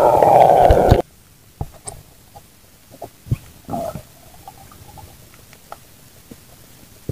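Loud gurgling rumble heard underwater that stops abruptly about a second in, leaving quiet water with scattered faint clicks and a few short blips.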